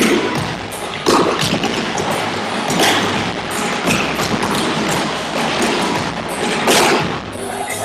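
Tap shoes striking portable wooden tap boards as several dancers dance a combination together: a rapid, uneven stream of sharp clicks and heavier stamps, with recorded music playing underneath.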